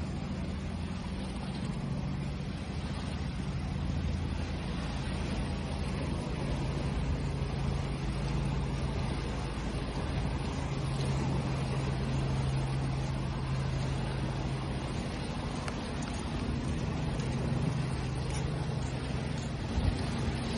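Ocean waves washing steadily, over a low steady drone, with a single thump near the end.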